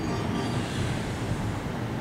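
Hankyu Kyoto Line electric train running on the rails, a steady rumbling noise of wheels and running gear.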